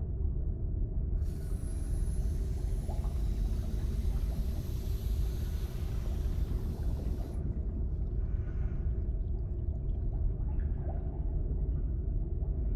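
A steady low rumble, with a hiss and a thin high whine that come in about a second in and cut off suddenly about seven seconds in.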